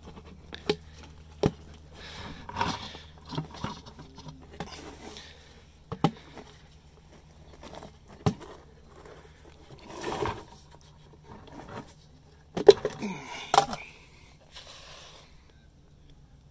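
Snap-on plastic lid of a pail being pried off: scattered sharp clicks and snaps and scraping of plastic as the rim is worked loose, with the loudest clatter in the last third as it comes free.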